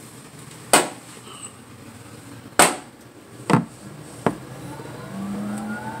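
General Electric front-loading washer-dryer combo starting its dry cycle: four separate knocks over the first four seconds, then a rising motor whine and a steady hum building near the end as the drum begins to turn.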